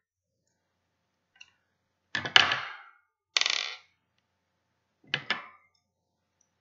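Small hard objects clicking and clattering on a wooden tabletop as a strand of pearls and a pair of scissors are handled: a clatter of sharp clicks about two seconds in, a short rasp just after, and two quick clicks near the end.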